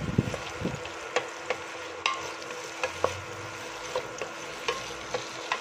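Diced seafood balls and crab meat frying in melted butter in a stainless steel pot, sizzling steadily. A wooden spoon stirs them, scraping and clicking against the pot.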